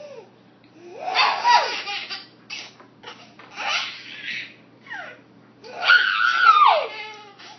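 Baby laughing hysterically in several separate fits of high, squealing laughter whose pitch slides downward. The longest and loudest fit comes about six seconds in.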